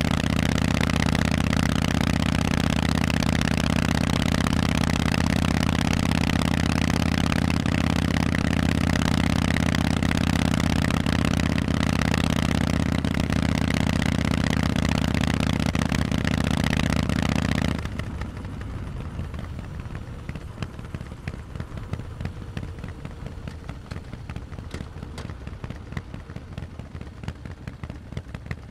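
Harley-Davidson Forty-Eight's air-cooled Sportster V-twin, through loud Vance & Hines exhausts, running at a steady speed with no rise or fall in pitch. About two-thirds of the way through the engine note cuts off suddenly, leaving a quieter, uneven crackling.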